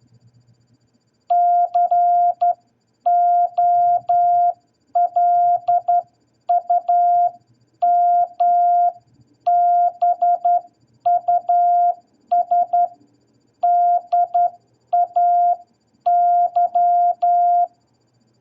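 Morse code for "COLUMBUS DAY" sent as a single mid-pitched beeping tone: dots and dashes keyed in eleven letter groups with short pauses between them.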